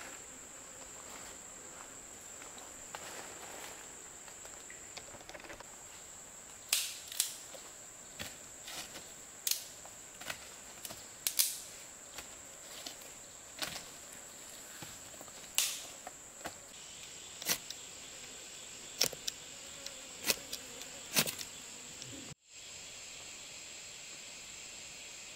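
Steady high-pitched drone of forest insects, with a string of sharp, irregular clicks or knocks through the middle. The drone breaks off for a moment near the end.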